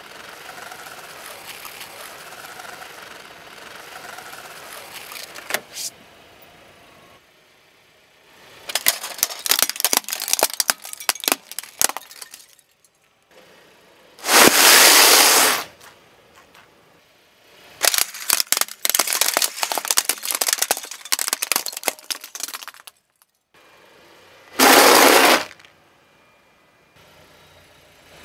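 A car tyre crushing crunchy objects on asphalt: two long runs of dense crackling and crunching, each followed by a loud rushing burst about a second long.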